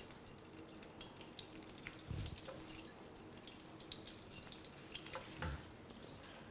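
Slit green chillies frying in hot mustard oil: faint, scattered crackles and ticks of spattering oil, with a couple of soft low thumps.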